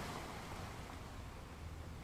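Sea ambience: a steady wash of gentle waves on calm water, with a low rumble underneath.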